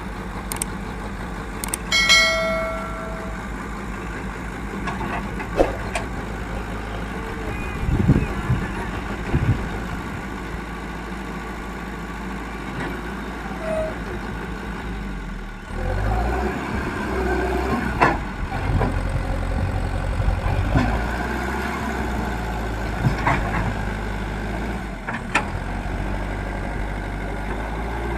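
Diesel engine of an old Leyland Deere 435 backhoe loader running steadily, then working harder and louder from about halfway through, with scattered metallic clanks. A short high tone sounds about two seconds in.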